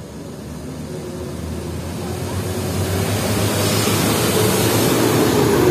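A heavy road vehicle approaching, its low engine rumble and tyre noise growing steadily louder.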